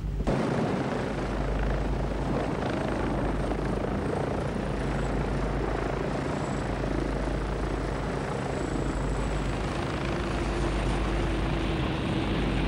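Helicopter in flight: steady rotor and engine noise with a thin, high whine, a little louder near the end.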